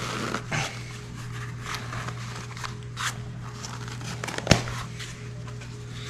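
Rubbing, rustling and scraping of a spotting scope's stretch fabric cover as it is tugged and worked along the scope body, with a sharp knock about four and a half seconds in. A steady low hum sits underneath.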